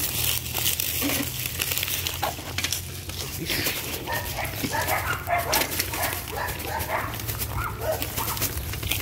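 A dog barking in short, repeated barks, mostly from about four seconds in, over crunching footsteps on dry ground and a steady low rumble.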